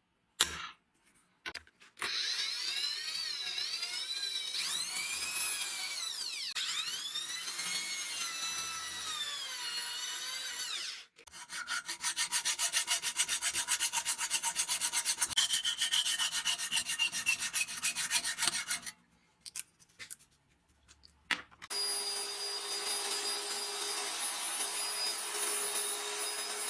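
Abrasive rubbing on wood, the work of restoring an antique wooden level. First comes a scratchy rubbing with wavering whistling tones. After a brief break it turns into faster, louder, even back-and-forth strokes. Near the end, after a short pause, a steady machine noise with a constant high whine starts.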